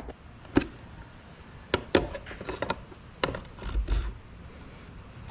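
Plastic mirror cap on a 2016 BMW 328i being pried off its retaining clips with a plastic trim tool: a series of separate sharp clicks and light snaps as the clips let go, with a dull knock of handling near four seconds in.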